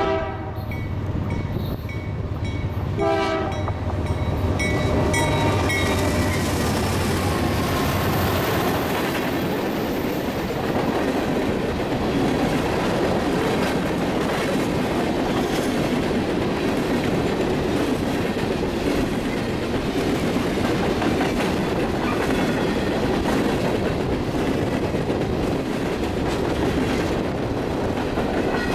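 Horn of a CN GE C44-9WL diesel locomotive sounding two short blasts, one at the start and one about 3 s in, over the low drone of the lead units' diesel engines. From about 7 s on comes a steady rolling rumble and clatter of empty coal hopper cars passing close by on the rails.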